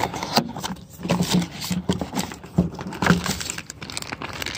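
Irregular clicks, taps and rustling as a small parts box and its packaging are handled and opened.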